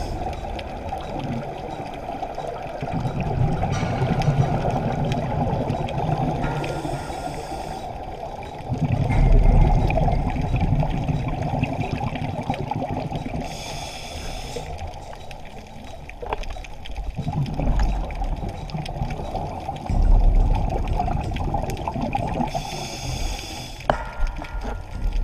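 Scuba diver breathing through a regulator underwater: a short hiss on each inhale and a rumbling gush of exhaled bubbles, about one breath every seven seconds, heard muffled through a GoPro housing.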